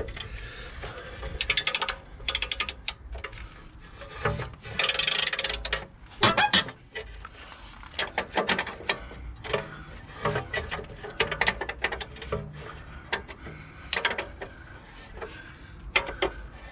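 Socket ratchet clicking in short runs as a large nut is wound off a suspension arm bolt.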